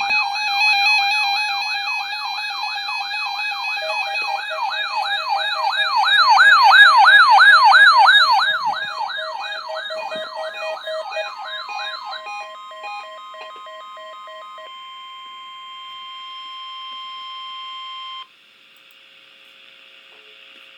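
Weather radio warning alarm signal: an electronic siren-like tone wails rapidly up and down, layered with a pulsing beep and a steady tone. The wail and beeps stop part-way, leaving the steady alert tone, which cuts off suddenly about 18 seconds in, then faint radio hiss.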